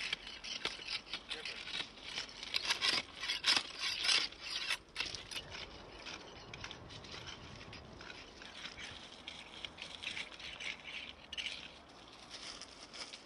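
Stones of railway track ballast crunching and scraping, a dense run of crackling clicks in the first five seconds, then a quieter, steadier rustle.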